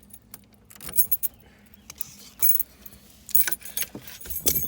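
Light metallic jangling and clinking in several short bursts, the loudest near the end, with no engine cranking.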